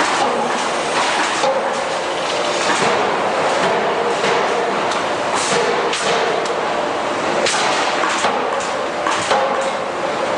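Forge shop machinery: forging presses striking steel plier blanks, with irregular sharp impacts several times a second over a constant loud machine din and a steady hum.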